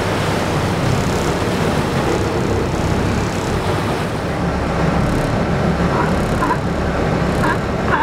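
Sportfishing boat's engine running steadily, with rushing wind and water noise. A few faint short chirping calls come in over the last two seconds.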